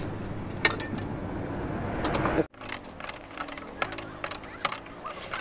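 Light metallic clicks and clinks of a ring spanner and a brake-pipe nut being threaded onto a brake master cylinder, with a brighter ringing clink about a second in. The sound drops out abruptly about two and a half seconds in, and light ticks follow.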